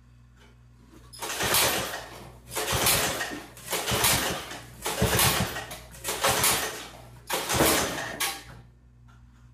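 Small engine of a 1968 Toro Snow Hound 20 snowblower being pull-started: six hard pulls on the recoil starter about a second apart, each one spinning the engine over briefly without it catching. It is choked at full throttle.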